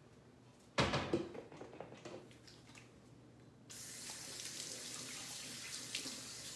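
A loud clatter of knocks about a second in, then a kitchen faucet is turned on about halfway through and water runs steadily into the sink as hands are washed.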